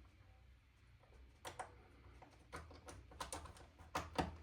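Scattered light clicks and taps of small hard parts being handled and fitted together, as an airsoft rifle's trigger mechanism is worked on by hand; a few clicks come in quick pairs, the loudest near the end.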